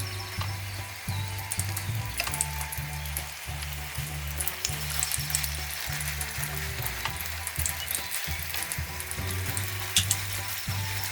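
Crepe börek sizzling and crackling as it fries in an oiled pan, over background music with a repeating bass line.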